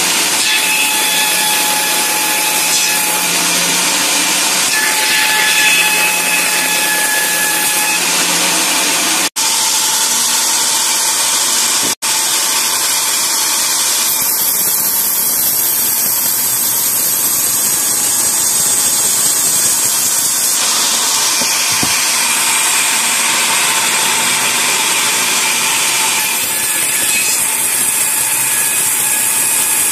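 Band sawmill blade running through a log, a steady high-pitched sawing noise, broken twice by very short dropouts about a third of the way in.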